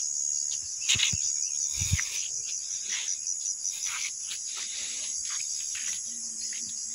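Insects chirring steadily in the roadside vegetation, a high, rapidly pulsing buzz, with a few soft knocks about one and two seconds in.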